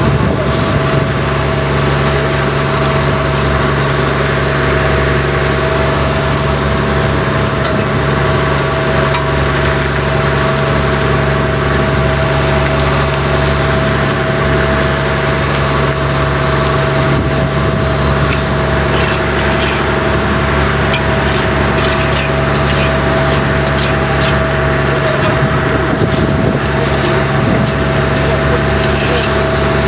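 Fishing boat engine running steadily at a constant speed, a loud, even drone with a fixed humming tone over it.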